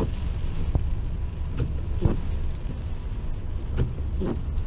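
Inside a moving car's cabin: steady engine and wet-road rumble, with the windshield wipers swishing across the rain-wet glass in repeated strokes every second or two.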